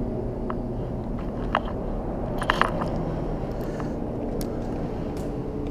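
Steady low rumble, with a few sharp clicks and taps scattered through it as fishing tackle is handled.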